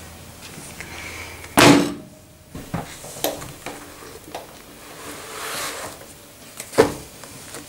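Knocks and thunks of objects being put down and handled on a tabletop, with a leather notebook folio being set down and slid about. The loudest thunk comes about one and a half seconds in, another near the end, with softer scuffing between.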